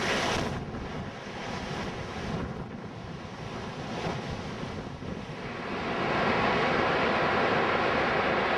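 Storm surf breaking and rushing ashore in a blizzard, with strong wind buffeting the microphone. The rush swells a few times, then grows louder and steadier about six seconds in.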